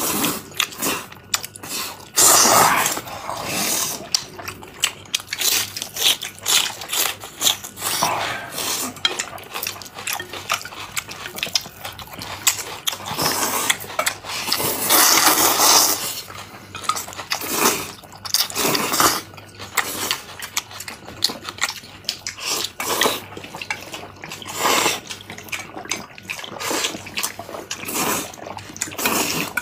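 People slurping and chewing hot dry noodles (reganmian) in repeated wet bursts, with chopsticks clicking on dishes. Near the end, gulping a drink from a bottle.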